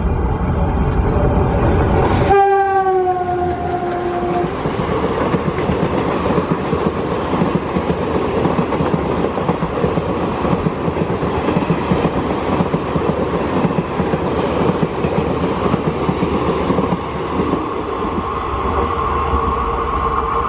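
WDM-3A diesel locomotive passing at speed: its engine rumbles, then about two seconds in it sounds a horn whose pitch slides down as it goes by. The horn stops a couple of seconds later, and the passenger coaches rush past with steady wheel clatter.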